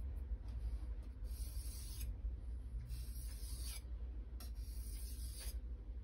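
Steel knife blade being stroked along a wet 800-grit whetstone, a hissy scrape with each pass, about one stroke every second and a half. A steady low hum runs underneath.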